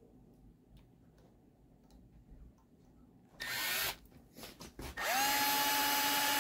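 Handheld electric drill: a short burst about three and a half seconds in, a few light clicks, then a longer steady run from about five seconds in, its whine rising briefly as the motor comes up to speed.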